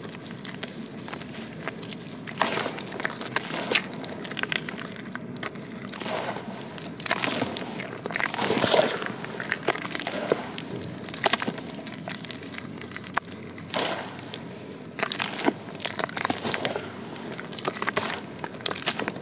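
Hands squeezing and kneading a thick paste of white dirt and water in a metal basin, with irregular wet clicks and crackles as the paste is pressed and pulled apart.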